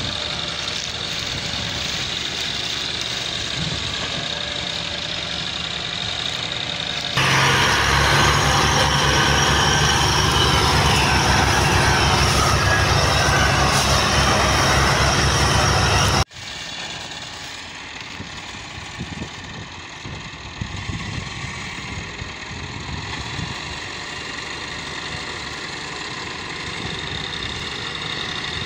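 Massey Ferguson 385 tractor's diesel engine running under load, pulling a heavily loaded trailer. About seven seconds in a louder stretch begins, with two tractors hitched in tandem pulling; it cuts off abruptly about sixteen seconds in, and the Massey Ferguson's engine is heard again, quieter.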